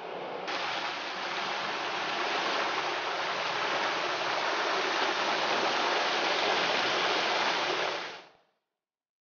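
Steady rush of running and falling water, stepping up in level about half a second in and fading out to silence about a second before the end.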